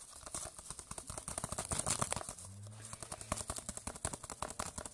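Loose scenic flock rattling and pattering against a clear plastic tub as a terrain base is worked through it: a rapid, dense ticking. A low steady hum joins for about a second in the middle.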